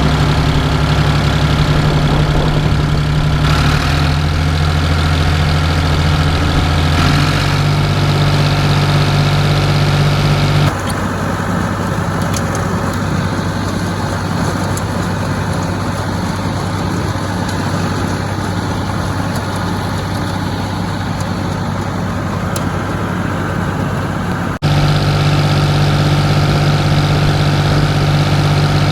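Ford farm tractor engine running steadily at a constant speed. About eleven seconds in the sound switches abruptly to a quieter, rougher, noisier engine sound, and about twenty-five seconds in it switches back just as abruptly to the steady, even engine.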